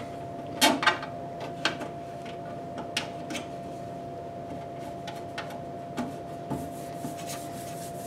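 Hands rummaging inside a desktop computer case: scattered light knocks, clicks and rubbing against the metal and glass panels, the sharpest about half a second in, over a faint steady whine.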